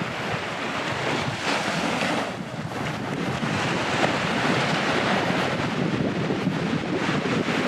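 Surf breaking and washing up a sandy beach: a continuous rushing wash that swells louder about halfway through, with wind buffeting the microphone.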